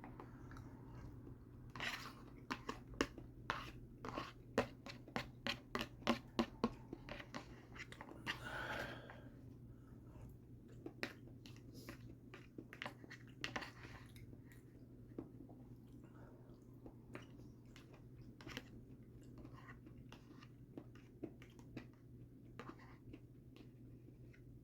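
Close-up chewing of a forkful of chicken and linguine in creamy sauce, with many quick wet mouth clicks that are densest in the first several seconds and sparser afterwards. There is a short breathy hiss about nine seconds in, over a low steady hum.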